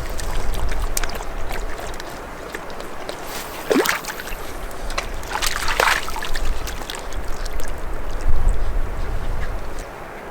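Water splashing and sloshing, with two louder splashes, at about four seconds and at about six seconds, over a low wind rumble on the microphone.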